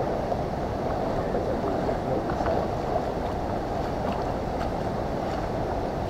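Shallow river water rushing steadily over stones, with faint light splashes and clicks from feet wading through it.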